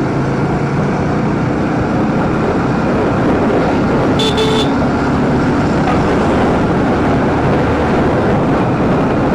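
Motorcycle running at steady road speed, its engine under a loud rush of wind on the rider's microphone. A short horn beep sounds about four seconds in.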